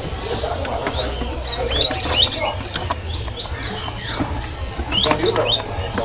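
Caged songbirds chirping, many short high calls and whistled notes overlapping, busiest about two seconds in and again near the end, over a steady low background hum.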